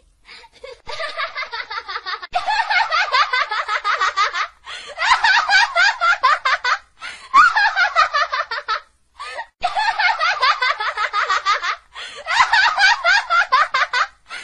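High-pitched, rapid giggling laughter, in about six long fits broken by short pauses.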